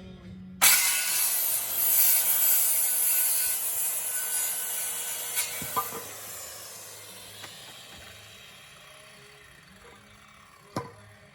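Corded power saw cutting through wood: a loud rasping cut that starts suddenly and slowly dies away, with a sharp click near the end.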